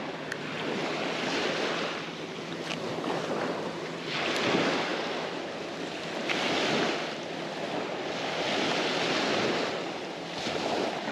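Small bay waves breaking and washing up on a sandy beach, swelling and ebbing every second or two.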